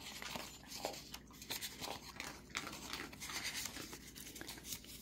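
Faint rustling and crinkling of lined notepad paper pages being handled and turned over, with small scattered ticks.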